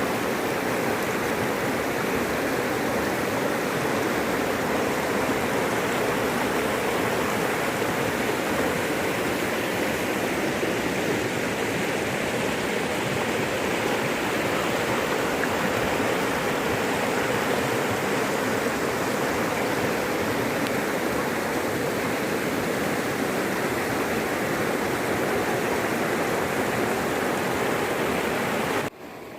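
Rushing floodwater, a steady loud roar of fast-moving water. It drops out briefly near the end.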